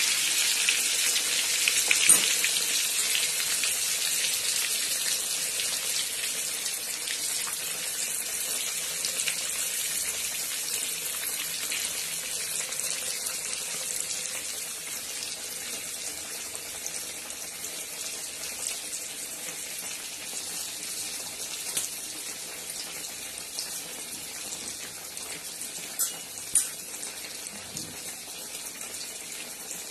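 A whole block of paneer deep-frying in hot oil in a kadai: a steady sizzle that slowly fades, with a few sharp pops, two of them close together near the end.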